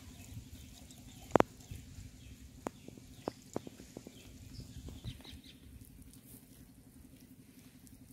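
Hands rubbing red masala paste into a whole raw chicken on a banana leaf: scattered soft wet slaps and clicks of handling, one sharper click about a second and a half in, over a faint steady low hum.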